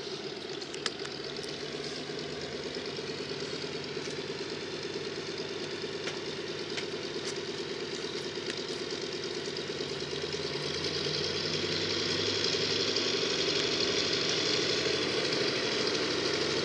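Mitsubishi A6M3 Zero Type 22's Pratt & Whitney radial engine and propeller running on the ground, holding steady and then growing louder about ten seconds in.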